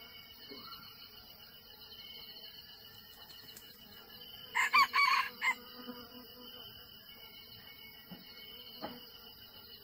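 Red junglefowl rooster crowing once about halfway through: a short crow of about a second, broken into a few notes. Insects keep up a steady high drone underneath.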